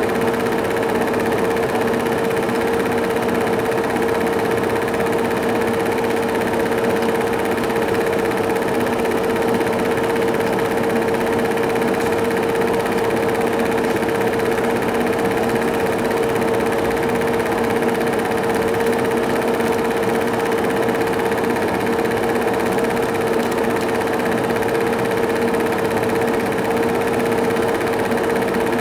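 Cine film projector running: a steady mechanical whir with a constant mid-pitched hum.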